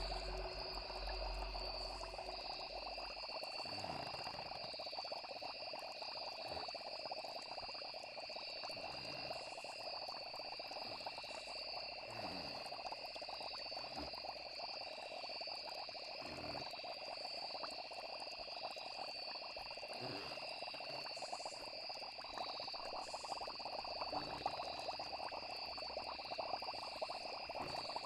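Night chorus of frogs croaking every few seconds over the steady chirring of insects. A low drone fades out about three seconds in.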